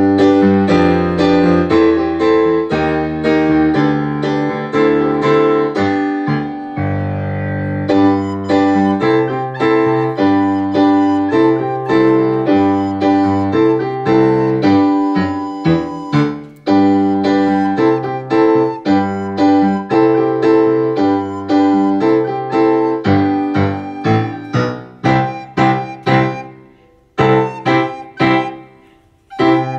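Piano-like keyboard playing a simple beginner tune built on the notes B, A and G, note by note at a steady pace over a lower accompaniment; near the end the notes come short and detached with small gaps between them.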